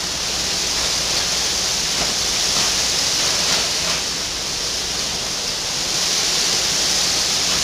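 Steady, fairly loud hiss with a low electrical hum underneath, the background noise of a recording or call line, with no voices.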